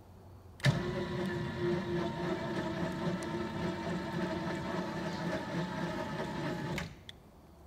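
A motor runs at a steady pitch for about six seconds, starting and stopping abruptly, each time with a click.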